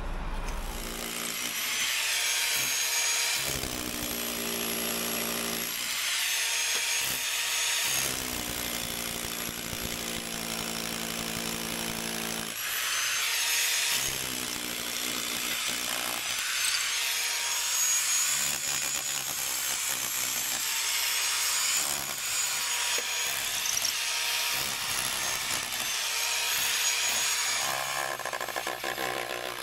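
Einhell hammer drill with a long masonry bit drilling out the mortar joints between bricks, running almost continuously with a steady high whine as it is worked along the joint.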